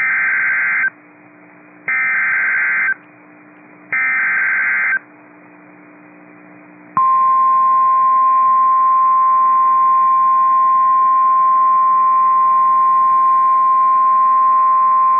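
Emergency Alert System SAME header: three one-second bursts of buzzy, warbling digital data about two seconds apart. After a short pause, a single steady weather radio warning alarm tone (1050 Hz) begins and holds, signalling that a severe thunderstorm warning follows.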